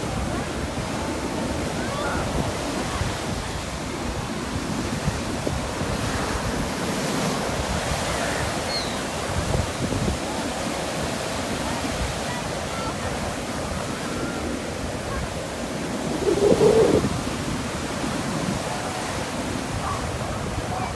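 Big sea waves surging and breaking continuously in strong wind, with wind buffeting the microphone. One wave crashes louder about three-quarters of the way through.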